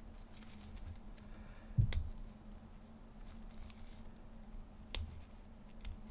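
X-Acto craft knife cutting into a plastic alcohol-marker barrel: faint scraping, with a sharp knock about two seconds in and a smaller one near the end.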